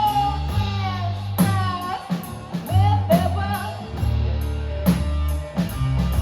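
Live blues-rock band music: guitar and drum kit on a steady beat, with a sung melody line.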